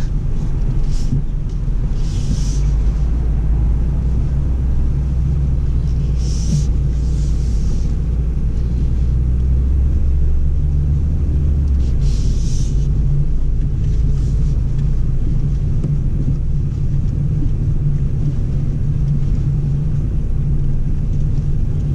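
Steady low rumble inside the cabin of a BMW X4 M40i rolling slowly along a dirt forest trail: engine and tyres over uneven ground. Its deepest part drops away about halfway through, and a few brief hisses come through on top.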